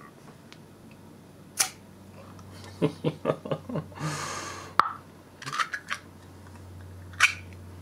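Ring-pull lid of a metal food can being opened by hand: a sharp click as the tab is lifted, a run of quick ticks and a short hiss as the seal gives, then more clicks as the lid is peeled back.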